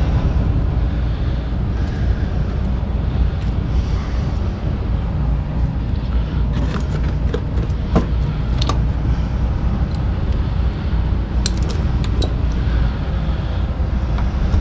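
A steady low rumble throughout, with scattered sharp clicks and light knocks of tools and wiring being handled, mostly in two clusters in the middle and latter part.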